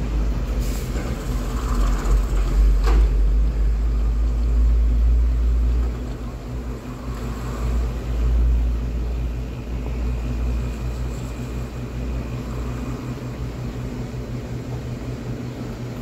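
Freezer's hermetic refrigeration compressor running with a steady low hum just after being switched on, pulling down the suction pressure on the low-side gauge. The low rumble is heavier for the first six seconds, and there is a light knock about three seconds in.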